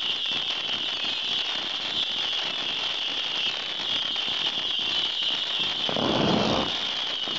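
A ground fireworks fountain spraying sparks, giving a steady hiss with dense crackling. It swells briefly about six seconds in.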